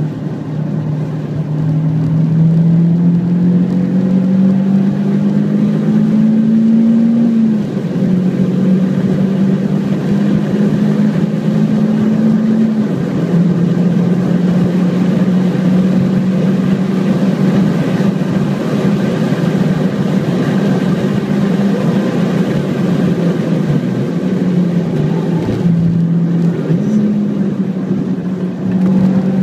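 Renault Clio 172 Cup's 2.0-litre four-cylinder engine at high revs, heard from inside the cabin at track speed over wind and tyre noise. The engine note climbs steadily, drops suddenly at two gear changes, and jumps up again near the end.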